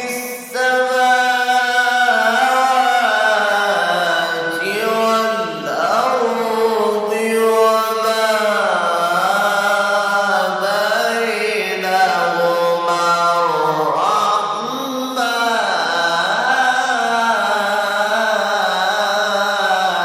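A solo male voice in melodic Quran recitation in the Egyptian mujawwad style, holding long ornamented notes that sweep slowly up and down in pitch, with only brief breaks for breath.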